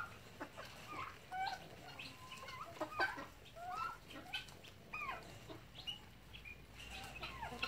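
A flock of chickens clucking as they feed: many short, overlapping calls one after another, with a sharp louder call about three seconds in.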